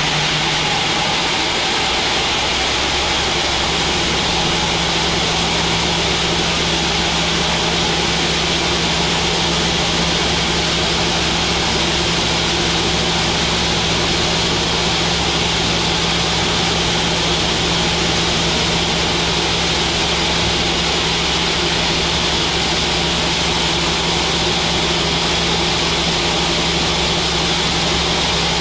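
Large sawmill band saw running and ripping a thick mahogany log into planks: a steady, unbroken machine drone mixed with the noise of the blade cutting the wood.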